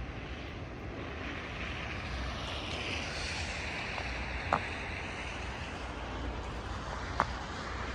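Steady rushing outdoor noise of distant road traffic and wind, swelling for a few seconds near the start, with two short sharp high blips later on.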